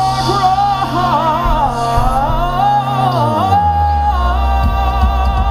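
Live music from a stage: a singer holding long, wavering notes over a steady bass note, which drops to a lower note about three seconds in.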